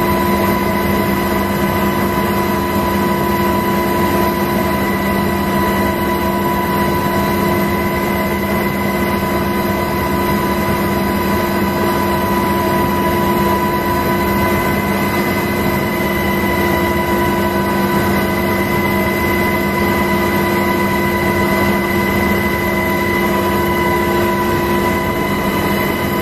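Engine and rotor noise of the aircraft filming the flyover, running steadily: a constant drone with several fixed tones over a rushing noise.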